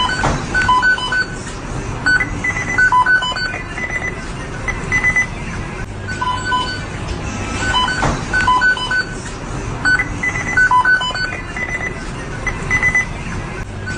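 Fast-food kitchen ambience: electronic equipment timers beeping in short groups at three different pitches over a steady background hum of kitchen machinery. The same beep sequence repeats about every eight seconds, as a loop.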